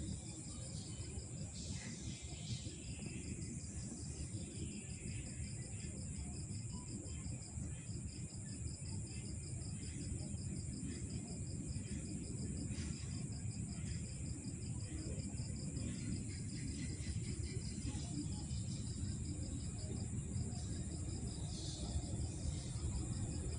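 Night insects trilling: a steady high-pitched trill with a rapid, evenly pulsed chirping just below it, over a continuous low rumble.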